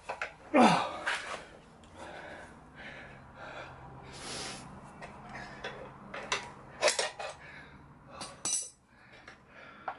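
Steel tyre lever clinking and knocking against a motorcycle's spoked wheel rim, with scraping between the knocks, as the tyre bead is prised off by hand. The loudest clank comes about half a second in, and there are further sharp knocks near the end.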